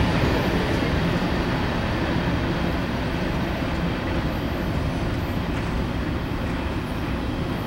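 Freight cars of a train, container-laden military flatcars, rolling by on the track: a steady noise of steel wheels on the rails that slowly fades as the end of the train moves off.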